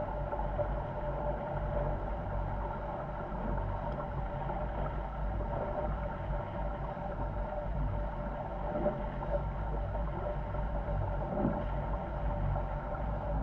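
Wind buffeting the microphone and water rushing past the hulls of a Corsair F-24 trimaran sailing fast in strong wind: a steady low rumble with a constant hum underneath.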